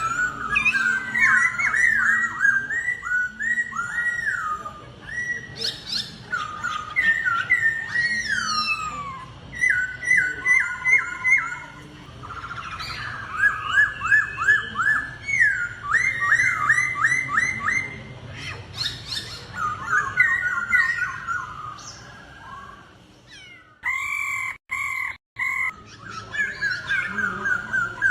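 Laughingthrushes singing in a song duel: phrases of rapid repeated whistled notes, some gliding down, with a short lull a little after twenty seconds and the sound cutting out twice briefly soon after.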